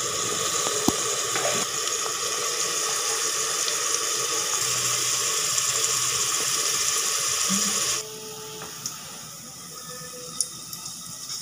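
Spices and masala sizzling loudly in hot oil in a pressure cooker. About eight seconds in it drops suddenly to a quieter sizzle of gram-flour pakoras deep-frying in a kadai, with a few small pops.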